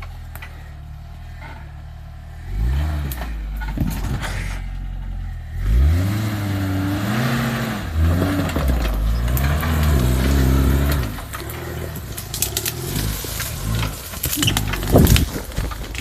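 Suzuki SJ410 engine idling, then revved hard several times under load, its pitch rising and falling. Near the end, a few sharp knocks stand out.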